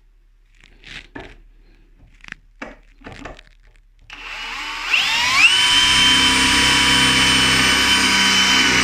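A few faint knocks, then about four seconds in the Bosch GSB 18V-150C cordless drill's brushless motor starts, rising quickly in pitch to a steady high whine.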